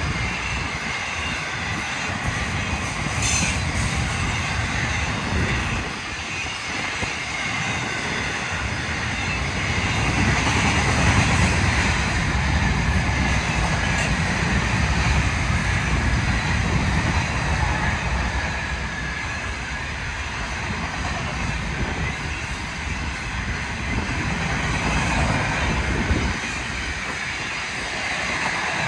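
Freight train cars rolling past: a steady rumble of steel wheels on the rail with a higher hiss of wheel noise, and a couple of sharp clicks.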